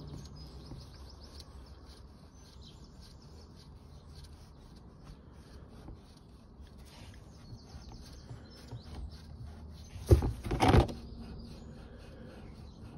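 Birds chirping faintly in the background over low ambient noise, with a brief loud knock about ten seconds in.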